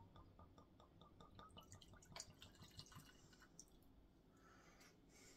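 Faint pour of whiskey from a bottle into a glass: a quick run of small drips and ticks that thins out after about three seconds.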